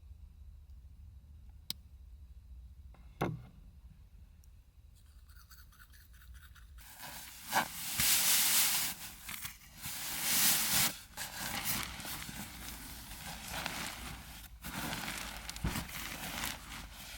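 Close rustling and crinkling of material being handled, after a couple of sharp clicks in the quiet first few seconds. The rustling starts about seven seconds in and is loudest around eight and ten seconds.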